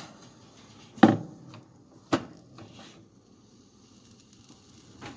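A few sharp knocks and clatters of bakeware and utensils being handled, the loudest about a second in and another just after two seconds.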